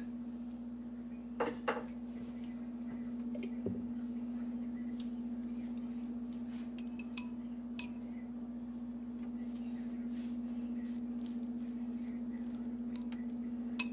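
Metal chopsticks clinking against a ceramic bowl as they stir noodles, a few scattered light clicks over a steady low hum.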